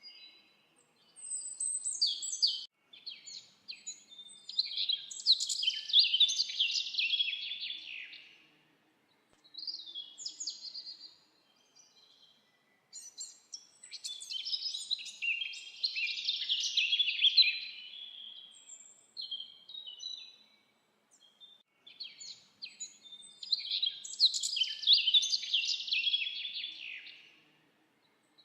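A songbird singing in long, rapid, chirping and warbling phrases, one roughly every nine seconds, with short single calls in the pauses between them.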